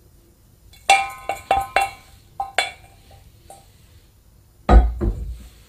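Background music: a run of short, struck, pitched notes, then a single low drum hit near the end.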